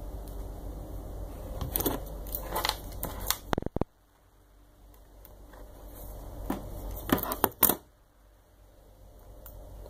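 Hands handling small parts and packaging on a workbench: scattered sharp clicks and crinkles in two clusters, about two seconds in and about seven seconds in, over a steady low hum.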